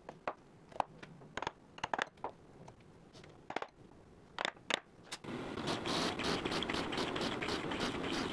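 Hand chisel cutting wood in short, separate sharp strokes. About five seconds in, a drill press takes over, running steadily as its bit bores into the wood with a fast, even pulsing.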